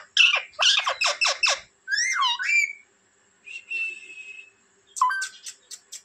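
Indian ringneck parakeet calling: a quick run of short, sharp, high squawks, then one warbling up-and-down call about two seconds in. A fainter thin call and a few clicks and chirps follow near the end.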